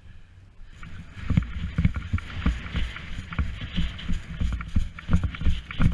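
Irregular thumps and rustling from a player moving with a body-worn camera, starting just under a second in: footsteps and gear knocking close to the microphone.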